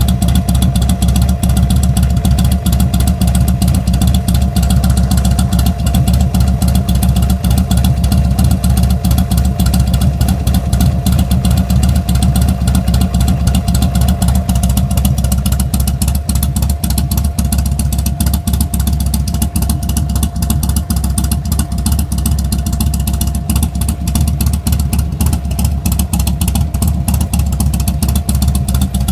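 2005 Buell XB9SX's 984 cc V-twin running loud and steady at idle through a D&D aftermarket exhaust, a continuous stream of exhaust pulses.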